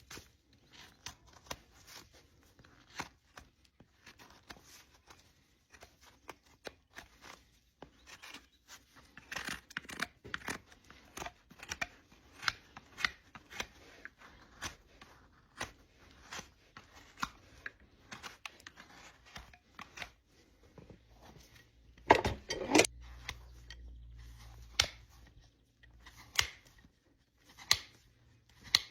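Hoof-trimming tools cutting and paring the horn of a draft horse's front hoof: a run of short, sharp snips and scrapes, roughly one a second, with one louder crack about three-quarters of the way through.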